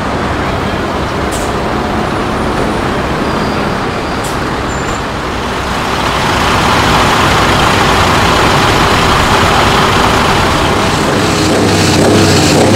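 Scania R500 V8 truck engine being revved, getting louder about six seconds in and held at higher revs.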